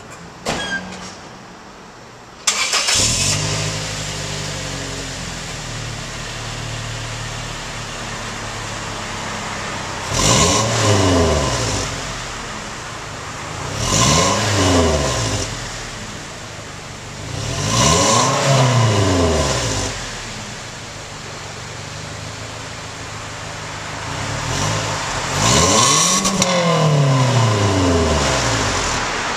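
2007 Toyota Tacoma's 2.7-litre four-cylinder engine, stock exhaust with a K&N drop-in air filter, cranked and started about two and a half seconds in after a couple of clicks, then idling. It is revved four times, each rev rising and falling back to idle within about two seconds, and the last one is held a little longer.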